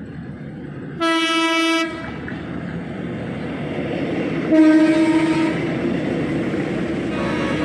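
PNR commuter train sounding its horn twice, a short blast about a second in and another about four and a half seconds in, while the rumble of the approaching train grows steadily louder.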